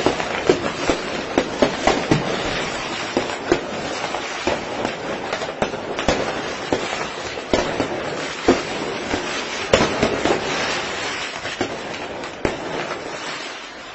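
Fireworks going off in a dense volley: continuous crackling packed with many sharp pops and bangs, thinning out and getting quieter near the end.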